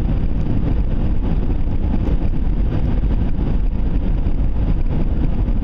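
A vehicle driving along, heard from inside the cab: a steady rumble of engine and road noise with no change in pace.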